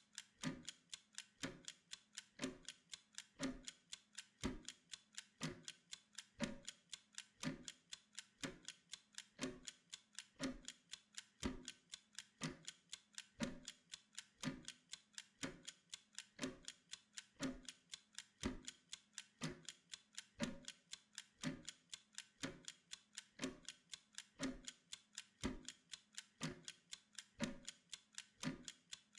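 Mechanical kitchen timer ticking steadily and evenly as it counts down.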